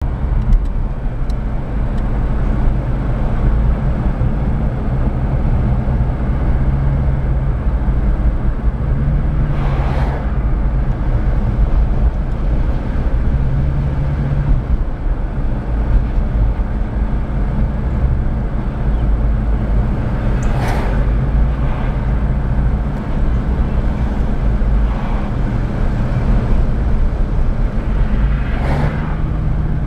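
Steady low rumble of a vehicle's engine and road noise, its hum shifting in pitch now and then, with three short whooshes about ten, twenty-one and twenty-nine seconds in.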